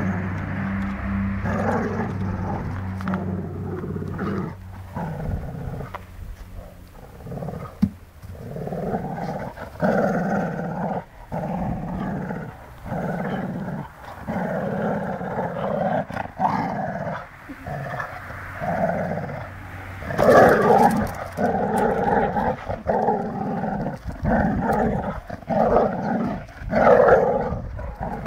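Dogs growling in a tug-of-war over a ball, play-fighting: a string of long, rough growls one after another with short breaks, getting louder in the last several seconds.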